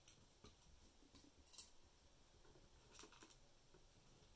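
Faint clicks and light taps of small pieces of sterling silver scrap being set on and taken off the steel pan of a digital pocket scale, a few at irregular intervals.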